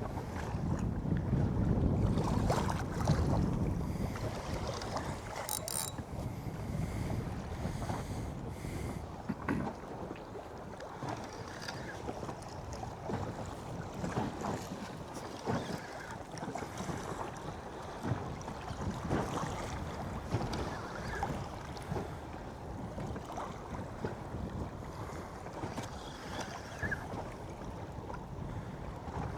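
Wind buffeting the microphone over water lapping against a small drifting boat, with scattered light knocks; the wind is strongest in the first few seconds.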